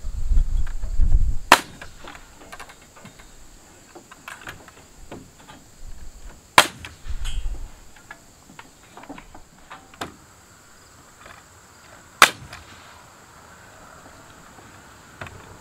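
Pneumatic framing nailer firing three single sharp shots, about five seconds apart, with a few faint knocks between.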